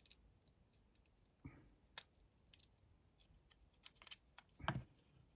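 Faint plastic clicks and scrapes from a Volvo smart key being handled as its back cover is slid off the key ring bracket, with one sharp click about two seconds in and a short scrape near the end.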